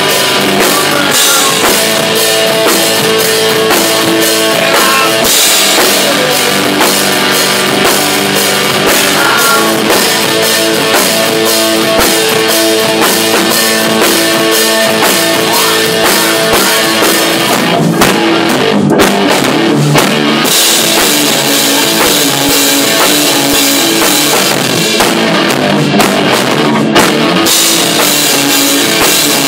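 A rock band playing live: drum kit with cymbals, electric guitars and bass, loud and steady. Twice, about 18 and 26 seconds in, the cymbals drop out briefly in short breaks in the music.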